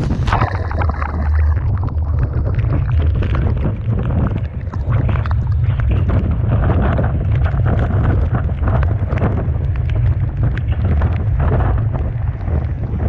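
Typhoon wind buffeting the microphone in a heavy, steady low rumble, with the rough sea and blowing spray hissing and crackling over it throughout.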